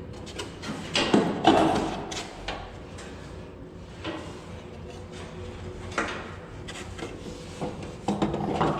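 Scattered knocks and clatter of parts being handled and pushed into place while a replacement fan motor is fitted into a window-type air conditioner, with a cluster of louder knocks about a second in.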